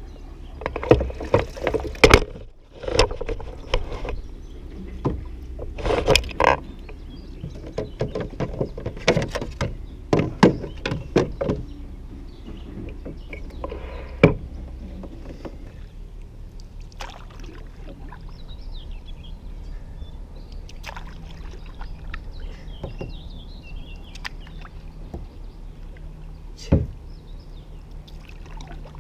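Handling noise on a plastic fishing kayak: irregular knocks and clunks against the hull and gear, many of them in the first dozen seconds, then quieter with one more thump near the end.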